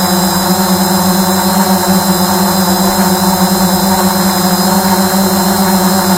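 Multirotor drone's propellers and motors running steadily while hovering, a constant hum with a high motor whine above it, heard close on the drone's own camera microphone.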